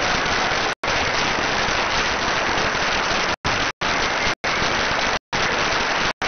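A large audience applauding steadily: dense, even clapping, cut by several brief dropouts where the sound drops out completely.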